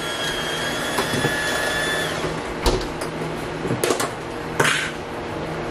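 Kitchen work at a pot: a steady high electric whine cuts off about two seconds in, then a few sharp knocks and clatters.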